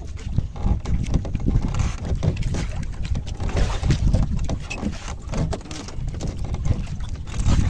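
Wind buffeting the microphone over the sound of waves against a small fishing boat at sea: an uneven low rumble that swells and drops, with scattered small knocks.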